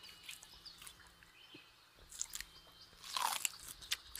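Quiet crunching and chewing sound effect of Google's augmented-reality 3D giant panda munching bamboo: a run of short, crisp, irregular crunches, loudest in a cluster about three seconds in.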